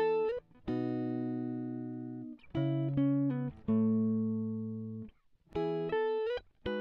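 Background music: a guitar playing slow single notes, each ringing out and fading. A couple of the notes slide up in pitch, one right at the start and one near the end.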